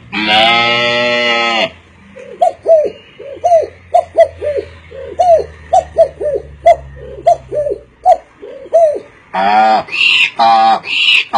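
A man imitating animals with his voice: a held, dog-like howl for the first second and a half, then a long run of short rising-and-falling coo-like hoots, about three a second. Louder yowling calls follow near the end.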